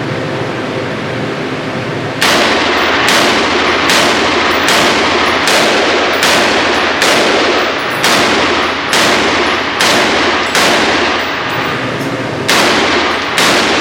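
A string of gunshots fired at a steady pace, about one every two-thirds of a second, starting about two seconds in, each with a ringing echo, then a short pause before two more shots near the end.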